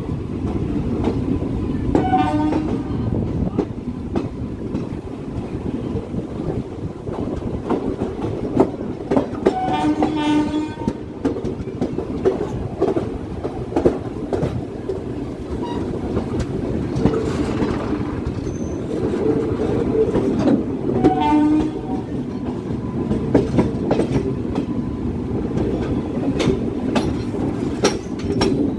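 Train running along the track: a steady rumble of wheels with many short rail-joint clicks, and three short horn blasts about 2, 10 and 21 seconds in.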